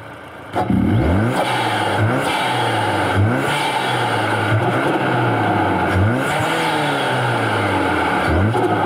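Hyundai Santa Cruz 2.5-litre turbocharged four-cylinder engine breathing through an open-element aftermarket intake, revved in neutral. It idles for about half a second, then gets a string of quick throttle blips, each rising and falling in pitch, with one longer rev about six seconds in. The intake noise is louder with the stock airbox removed.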